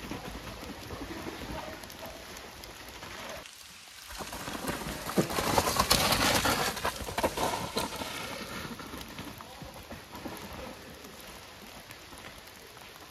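Mountain bike tyres rolling and sliding over wet leaves and mud, with the bike rattling as a steady, noisy hiss full of small clicks. It breaks off briefly about three and a half seconds in and is loudest from about five to seven seconds in, as a rider on a mountain bike passes close by.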